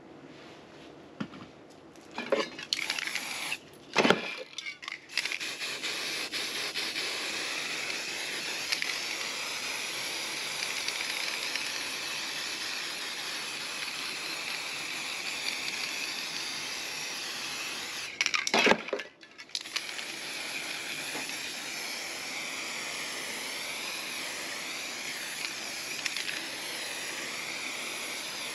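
Aerosol spray paint can hissing steadily in long continuous sprays. There are a few sharp knocks and clatters in the first few seconds, and a short break with more knocks about two-thirds of the way through.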